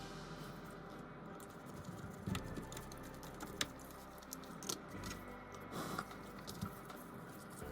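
Scattered light clicks and small taps, a few seconds apart, over a faint steady hum: the sound of small hand work on a bench.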